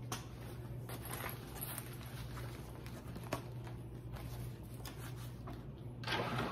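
Rustling and small clicks of a nylon belt bag being handled, taken off the waist and set down on a table, with one sharper click about three seconds in, over a steady low hum.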